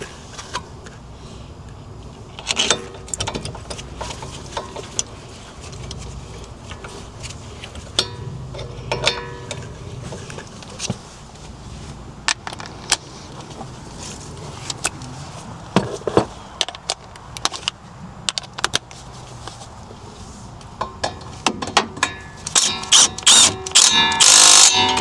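Hand tools working on the Durango's wheel, with scattered metal clicks and knocks like a ratchet and metal parts being handled. Near the end comes a dense run of rapid metallic clicking and clanking, some of it ringing.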